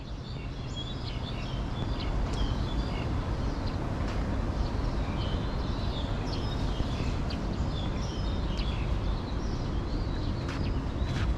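Small birds chirping and twittering over a steady low background rumble, the whole fading in over the first couple of seconds.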